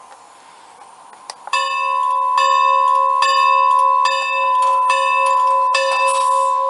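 Model locomotive bell sound from a TCS WOW Sound decoder, played through a small high-bass model-railroad speaker. It starts about a second and a half in and rings on steadily, struck again about once every 0.85 s.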